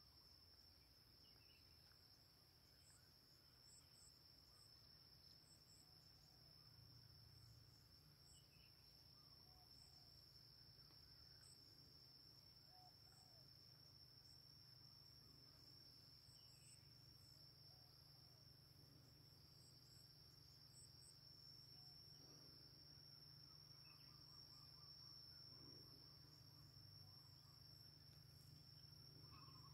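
Faint outdoor ambience: a steady high-pitched insect drone, with short paired chirps every second or two and a few faint bird calls, over a low steady rumble.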